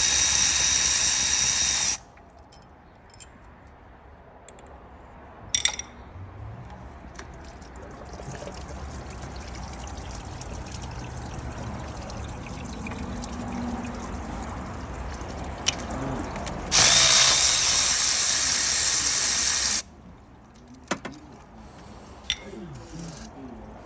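Handheld power drill running in two steady bursts of about three seconds each. The first stops about two seconds in, and the second starts past the middle.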